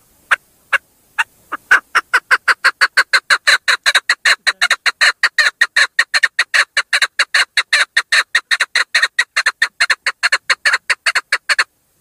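Female chukar partridge calling. A few spaced notes quicken within about two seconds into a fast, even run of about five notes a second, which stops suddenly near the end.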